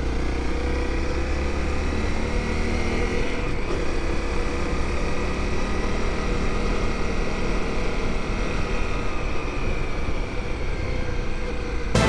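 Honda CRF250L's single-cylinder four-stroke engine running at a steady cruise on the move, with wind rushing over the microphone.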